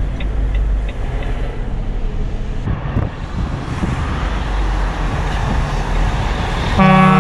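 Steady engine and road noise of a truck on the move, heard from inside the cab, with light ticking about three times a second during the first second or so. Near the end a truck horn sounds once, a short steady blast, as a greeting to an oncoming truck.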